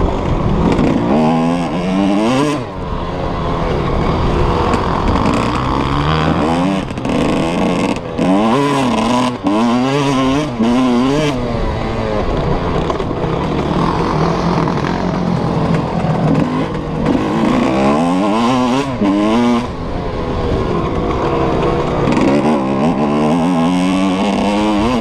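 Suzuki RM125 two-stroke motocross bike engine, heard from the rider's helmet, revving up hard and falling back again and again as it accelerates, shifts and backs off for corners on a dirt track.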